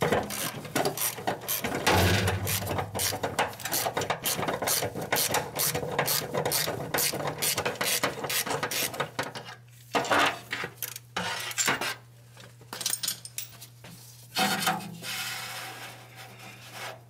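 Ratchet wrench clicking in quick, even strokes as a top transmission bell-housing bolt is backed off. The clicking runs steadily for about nine seconds, then comes back in a few short bursts.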